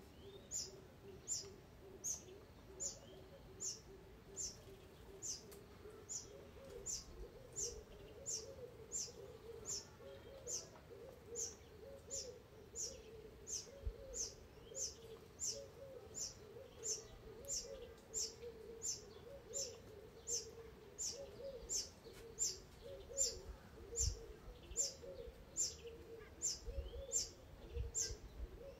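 Juvenile Diderick cuckoo begging: a short, very high, thin call falling slightly in pitch, repeated steadily about three times every two seconds.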